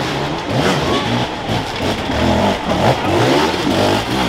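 Enduro dirt bike engine revving hard under load on a steep muddy climb, its pitch rising and falling again and again as the throttle is worked.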